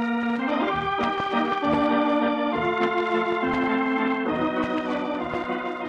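Organ playing a short act-opening music cue of held chords that change about once a second, fading down near the end.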